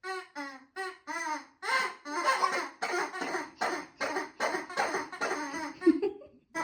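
Laughter: a run of short separate "ha" sounds, then a longer, unbroken stretch of laughing from about two seconds in.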